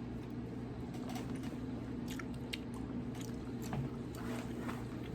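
Faint, scattered small clicks and ticks, a dozen or so at uneven intervals, over a steady low hum.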